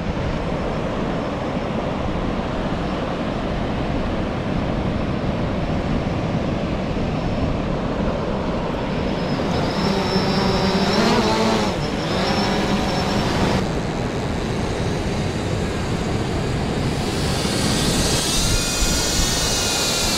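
Steady rush of surf and wind. About ten seconds in, a hand-held quadcopter drone's propellers spin up for takeoff with a whine that rises and falls in pitch. Near the end a louder, higher, wavering drone whine returns as the drone flies out carrying the bait line.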